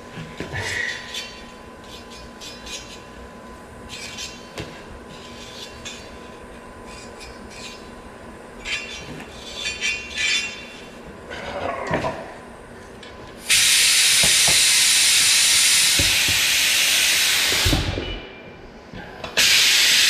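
Compressed air hissing loudly and steadily for about four seconds as a shop air hose fills a portable tire bead-seater (bead blaster) tank, followed near the end by a second short, loud burst of air.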